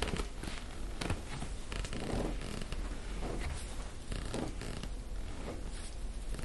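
Hands rubbing and pressing over a cotton shirt on a person's back during hands-on back work, making repeated short rustles about every half second.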